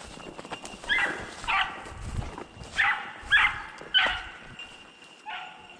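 Rabbit-hunting beagles baying on a jumped rabbit's track: about six short, separate bays spaced roughly a second apart, the sign that the dogs have struck the trail and the chase is on.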